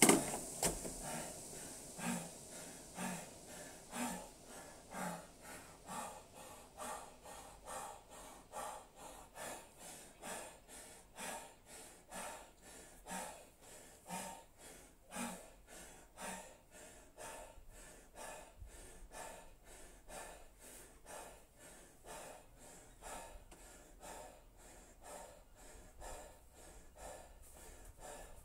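A man breathing hard and rhythmically while rowing on a rowing machine, a little over one breath a second: heavy exertion near the end of a hard workout.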